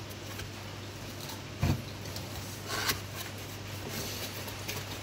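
Cardboard box and packaging being handled while unboxing: light rustling and scraping, with a soft thump about a second and a half in and a brief scrape near three seconds. A steady low hum runs underneath.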